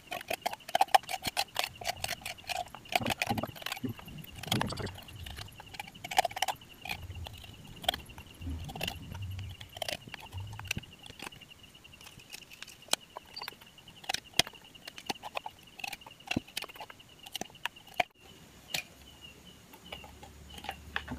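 Metal spoon scraping the soft flesh out of a young green coconut shell: a rapid, irregular run of scratches and clicks, thinning out after about halfway.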